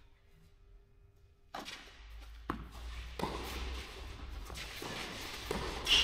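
Tennis ball knocks in an indoor hall, racket strokes and bounces. After a near-silent second and a half, a few sharp hits come about a second apart, with a louder hit near the end.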